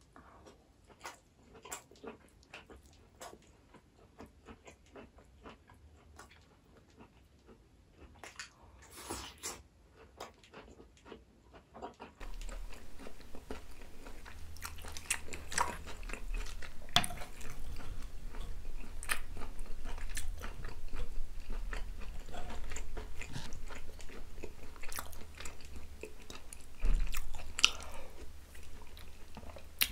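Close-miked chewing and biting of braised pork belly with green onion kimchi: wet mouth clicks and smacks, sparse and quiet at first, then denser and louder from about twelve seconds in.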